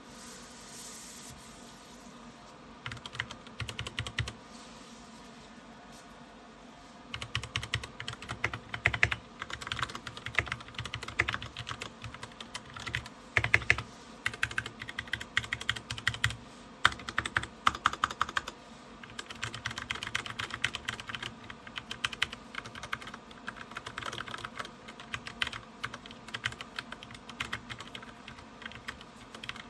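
Typing on a DREVO Seer PRO 61-key mechanical keyboard with Gateron Brown switches: a short burst of keystrokes, then fast, continuous typing from about seven seconds in.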